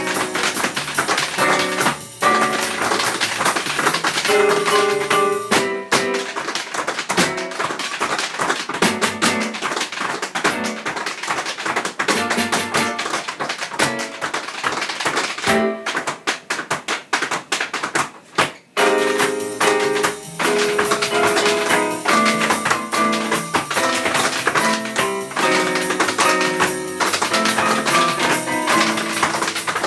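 Lively music with fast percussive tapping, flamenco-like in style, with a couple of brief breaks about halfway through.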